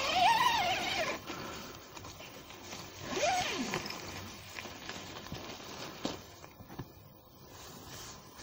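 Zipper on the inner tent's polyester door being pulled open: a longer rasping pull in the first second, a shorter one about three seconds in, then faint fabric handling.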